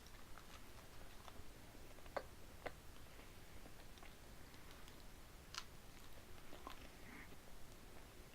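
Faint chewing of toasted bread, with scattered soft crunches and mouth clicks, a few slightly louder ones about two seconds in and again past the middle.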